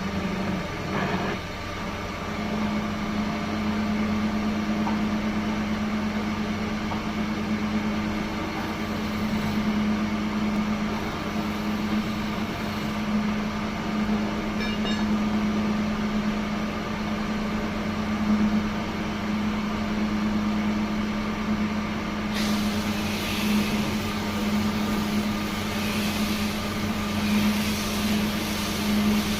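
A woodworking machine's electric motor running with a steady hum. About two-thirds of the way in a hiss joins it.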